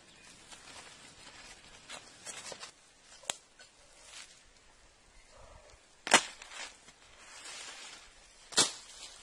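Sharp cracks or knocks, a few faint ones and then two loud ones about six and eight and a half seconds in.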